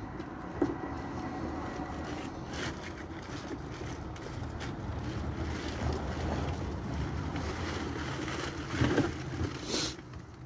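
Blue plastic tarp rustling and crinkling in short bursts as it is pulled over the trailer and tied down, the loudest near the end, over a steady low rumble.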